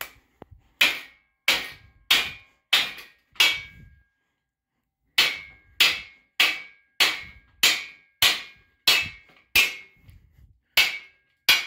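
Hammer blows on metal, about fifteen evenly paced strikes with a short pause about four seconds in, each leaving a brief metallic ring: knocking the engine stand's mounting arm into place on the hoisted engine.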